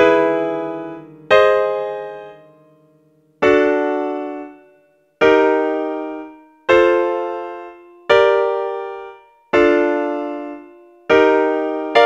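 Piano playing three-note chords one at a time, about eight in all, each struck once and left to ring and fade before the next, roughly one every one and a half seconds.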